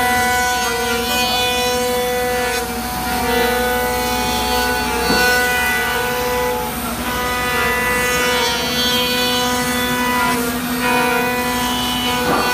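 CNC router spindle running with a steady high whine while it cuts a wooden rifle stock, the cutting noise swelling and easing every few seconds as the bit moves along the wood.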